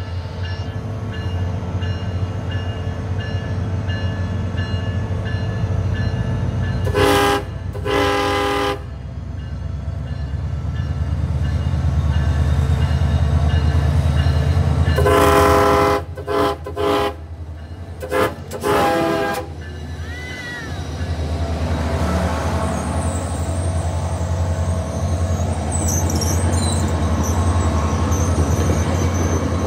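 SunRail MP32PH-Q diesel locomotive sounding its horn as it approaches a grade crossing: two blasts, then a cluster of five about 15 to 19 seconds in, the first of these the longest, over the steady rumble of the engine. The bilevel coaches then roll past close by, with wheel noise and a brief high squeal near the end.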